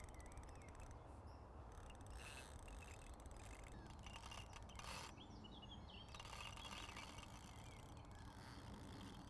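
Faint, rapid clicking of a fishing reel's drag in short spells as a hooked carp takes line, with small bird chirps.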